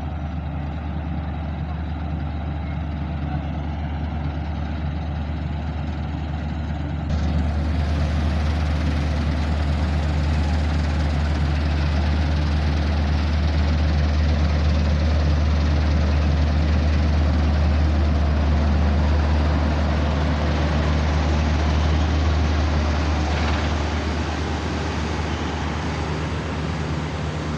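Combine harvester running steadily: a loud, deep engine drone. About seven seconds in it becomes louder and fuller.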